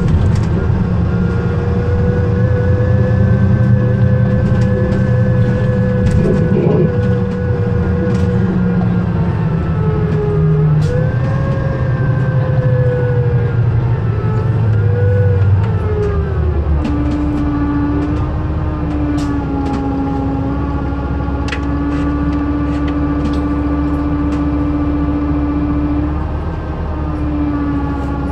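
Cummins ISL straight-six diesel driving a New Flyer Xcelsior XD60 articulated bus through an Allison B400R6 automatic: the engine pulls strongly with a whine whose pitch rises and falls. About sixteen seconds in, the engine drops back and a lower steady whine carries on, with a few sharp rattles.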